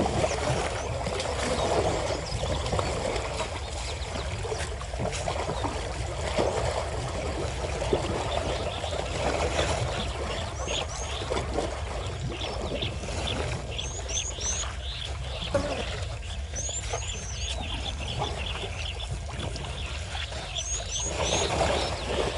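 Water splashing and sloshing as African elephants wade and their calves wallow in a waterhole, swelling near the start and again near the end. In the second half a bird repeats a run of three quick, high, rising chirps several times.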